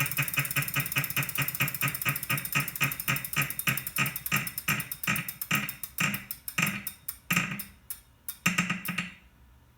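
Wahoo Kickr 2018 smart trainer spinning down with a repeating ringing tick. The ticks come about five or six a second at first, slow steadily as the flywheel coasts, and stop about nine seconds in. This is the fault noise the trainer makes.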